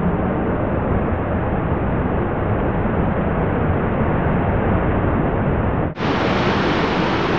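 Waterfall pouring into a rocky pool: a steady, loud rushing of water. There is a brief dropout about six seconds in, after which the rush sounds brighter.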